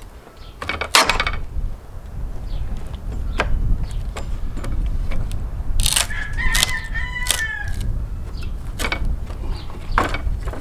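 A rooster crows once, for about a second and a half, roughly six seconds in. Several sharp cracks are also heard, the loudest about a second in.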